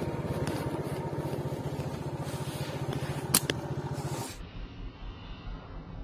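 Motorcycle engine running steadily under way, heard from the rider's back, with one sharp click about three seconds in. After about four seconds it cuts off abruptly to a much quieter outdoor background.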